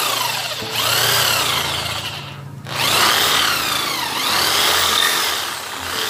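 Electric drill boring a hole through the motorcycle's plastic battery-box panel. The motor's whine rises and falls as the bit cuts. It drops off briefly about half a second in, then stops for about half a second around two seconds in before drilling resumes.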